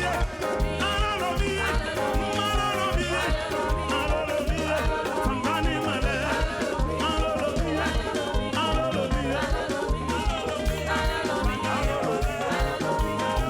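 Upbeat Ghanaian gospel praise music with a fast, steady beat.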